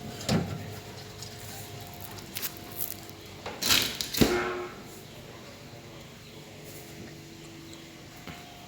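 Steady hum of a running refrigerator compressor, with a few knocks and clicks and a short hiss about three and a half seconds in.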